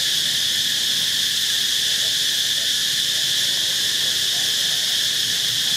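Steady, high-pitched chorus of insects, an unbroken buzzing drone.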